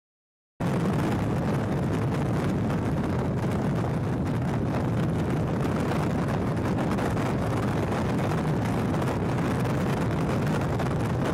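Steady rumble and road noise of tractors on the move along a dual carriageway, heard from a vehicle travelling alongside them. It cuts in abruptly about half a second in and holds level.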